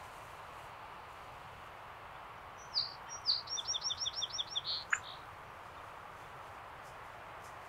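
A small songbird sings one short song about three seconds in: two lead-in notes, then a quick run of about eight repeated down-slurred high notes, about two seconds in all, over a faint steady hiss. A brief sharp click comes just as the song ends.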